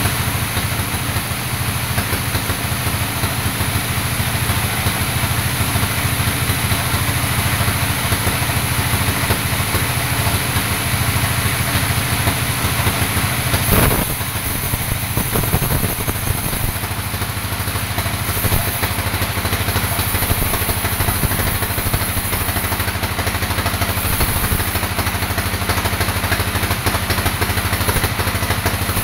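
Vertical band sawmill running as it saws a teak log about 50 cm across: a steady machine drone with blade noise. There is a brief louder burst about 14 seconds in.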